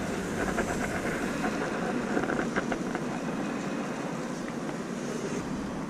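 Steady outdoor city-street noise with a traffic-like rumble, and a few faint clicks about two and a half seconds in.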